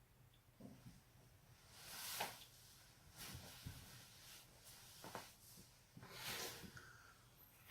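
Joints cracking, from a neck and back cracking session: several quiet, sharp pops spread apart, the loudest near the end, with soft swells of hiss between them.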